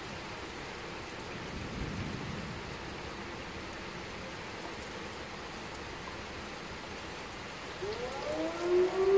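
Steady rain falling on the lawn and street. Near the end an outdoor tornado warning siren starts winding up, rising in pitch as it gets louder.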